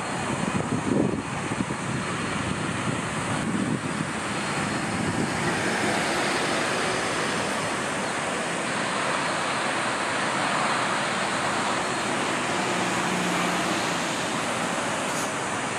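Airbus A330-200 jet engines at taxi power, a steady rushing hiss as the airliner rolls along the taxiway, swelling slightly about six seconds in.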